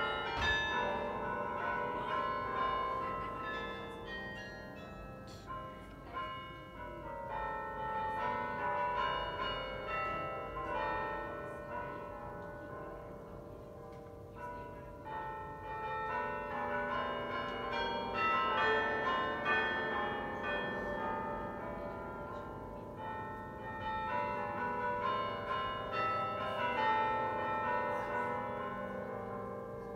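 The Belfry of Bruges carillon playing a tune: many tower bells struck in quick succession, each note ringing on and overlapping the next. It is a little quieter around the middle and fuller again toward the end.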